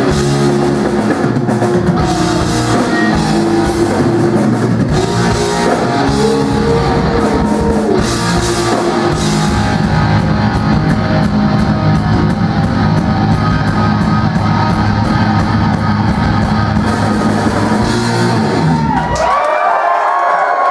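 Live rock band playing an instrumental stretch with drum kit and electric guitars, heard loud from the audience. The band stops about 19 seconds in, and the crowd starts cheering.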